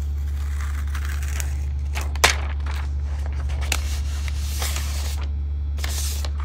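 Protective paper wrap being peeled and handled on a new iPad 9th generation: crackly rustling and scraping with a sharper crinkle a little over two seconds in, over a steady low hum.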